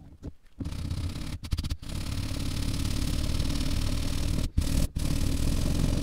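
Sanding sponge rubbed hard back and forth over hardened polymer repair compound filling the edge of a climate-control bezel: a steady scratchy rasp with a few short pauses between strokes. The filler is being sanded down nearly flush with the bezel.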